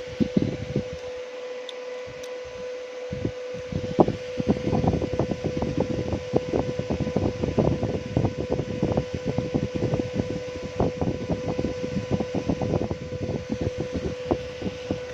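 A small fan hums steadily with a clear tone, while irregular crackling clicks come and go from about four seconds in, as a soldering iron works across the flux-pasted pins of a phone's charging jack.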